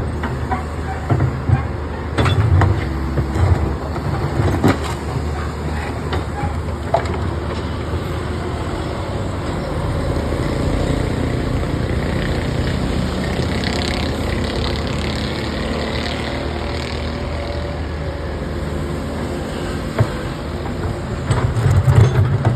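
Backhoe loader's diesel engine running steadily, with scattered knocks and clanks in the first several seconds and again near the end.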